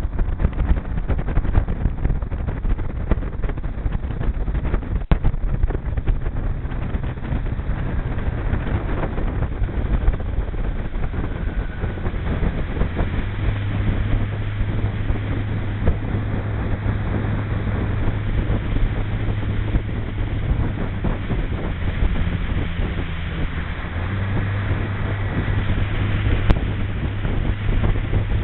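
Motorboat under way: its engine runs at a steady hum, under the rush of wind on the microphone and water against the hull.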